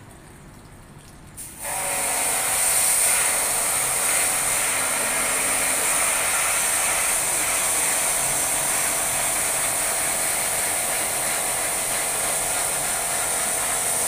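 Pressure washer spraying water onto an air-conditioner condenser coil to wash the dirt out: a steady hiss of spray with the machine's hum under it. It is quieter for the first second and a half and starts up fully a little under two seconds in.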